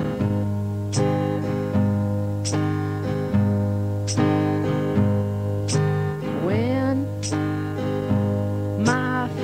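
Lo-fi song from a 1993 home cassette recording: chords struck at a steady pace, about every second and a half with lighter strokes between, over held low notes. A sliding, wavering melody line comes in briefly past the middle and again near the end.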